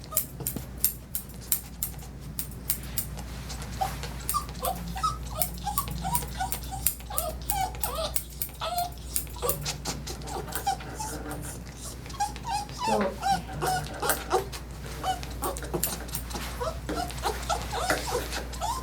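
A small dog whining in many short, high, wavering cries, mixed with a run of sharp clicks.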